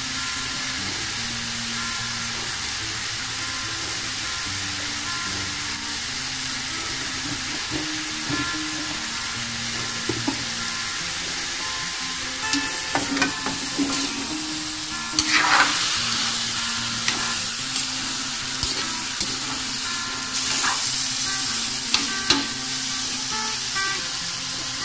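Chicken, potatoes and carrots frying in an aluminium wok, a steady sizzle, with a spatula stirring and scraping the pan in the second half, knocking against the metal and stirring up louder bursts of sizzling.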